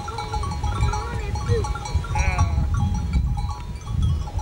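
Flock of sheep and goats grazing, with sheep bleating several times (one louder call about two seconds in) and small bells clinking over a steady low rumble.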